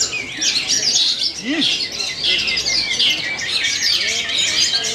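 Long-tailed shrike singing a rapid, busy chattering song amid a dense chorus of other caged songbirds, many high chirps and twitters overlapping without a break.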